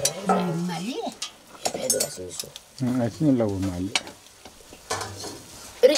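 Green vegetables sizzling in a wok as they are stirred with a pair of long sticks that click and scrape against the metal. Twice, a drawn-out voice-like sound rises and falls between the stirring noises.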